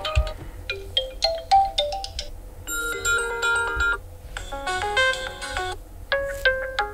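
Ringtone previews from an OPPO A18 phone: short electronic melodies of bell-like notes, a different tune starting about every second and a half as one ringtone after another is tried.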